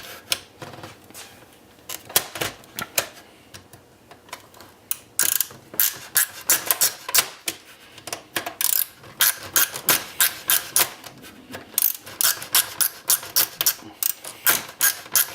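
Hand tools clicking and clattering against a dot-matrix printer's metal and plastic frame as a small electric motor is worked loose. Scattered clicks for the first few seconds, then quick runs of sharp clicks, several a second.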